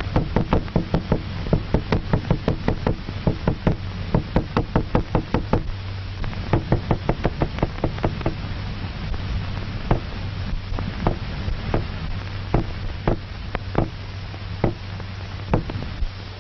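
Repeated sharp knocks on a hard surface, made as a sound stimulus to test the isolated dog head's response. There is a quick run of knocks for about six seconds, then they come slower and more spread out, over a steady low hum from the old film soundtrack.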